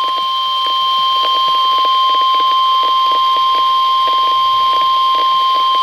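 Emergency Alert System attention signal, the single steady 1050 Hz NOAA Weather Radio warning alarm tone, sounding without a break through a radio's speaker. It is the alert that a severe thunderstorm warning message is about to follow.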